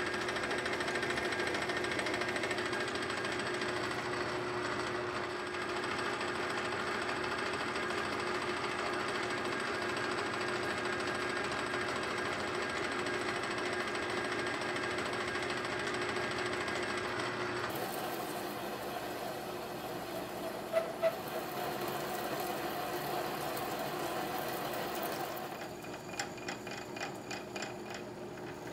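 Metal lathe running under power, single-point cutting a thread on a steel shaft: a steady mechanical whir with a ringing tone. The sound changes suddenly about two-thirds of the way through, and near the end it turns to a fast, even ticking.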